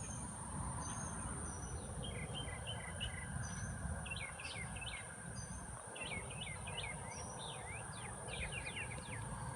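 Songbirds chirping and trilling in quick runs of short notes, over a steady high insect drone that fades about a second and a half in, with a low rumble underneath.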